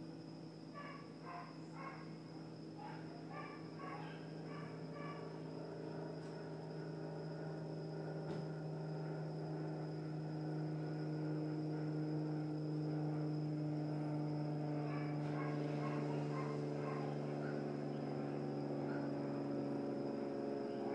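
Dogs barking faintly in two bouts of quick repeated barks, one a second or so in and another about fifteen seconds in, over a steady hum that grows slowly louder.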